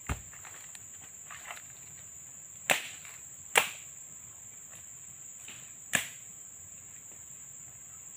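Insects buzz steadily on one high note. Four sharp cracks cut across it, near the start, twice close together a little before the middle, and once more past the middle.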